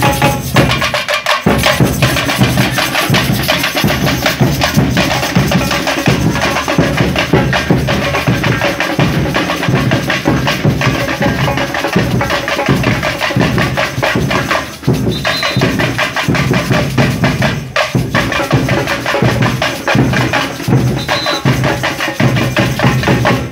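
Batucada drum group playing a fast, dense carnival rhythm on large bass drums and other hand-held percussion.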